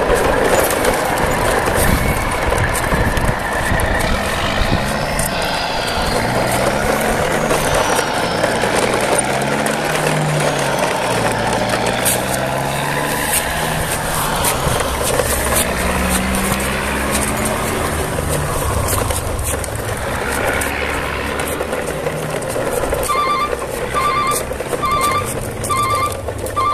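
Vehicle engines running, heavy and continuous, with a row of about six short, evenly spaced electronic beeps near the end, like a reversing alarm.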